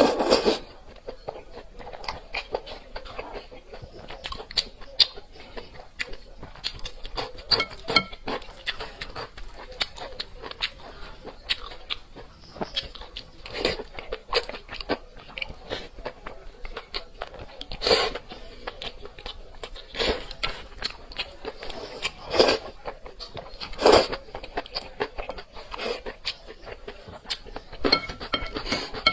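Close-miked eating: wet chewing and crunching of Chinese food, with a steady patter of mouth clicks and louder bites every couple of seconds.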